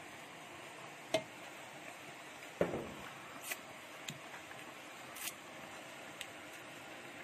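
Chopsticks clicking and tapping against a metal pot of steamed chicken thighs, about six scattered short taps, the loudest about two and a half seconds in, over a faint steady hiss.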